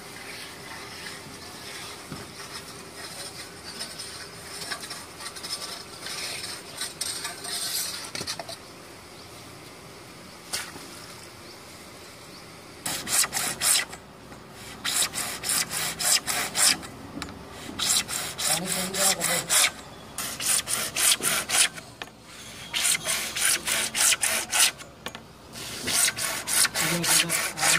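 Hacksaw cutting PVC pipe: quick back-and-forth strokes in bursts of a second or two, with short pauses between them, starting a little before halfway in.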